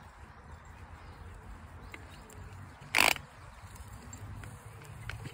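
Wind rumbling on the microphone, with one short, loud animal call about three seconds in.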